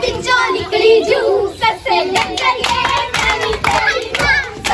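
Girls' voices singing Punjabi boliyan, the folk couplets sung for gidha, with hand clapping that becomes a steady clapped beat of about three to four claps a second from about two seconds in.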